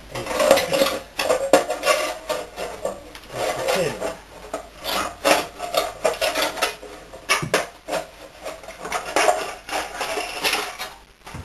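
Hand shears cutting through the thin sheet metal of an old oil tin: an irregular run of sharp metallic snips and crunches, with the metal scraping as it is worked.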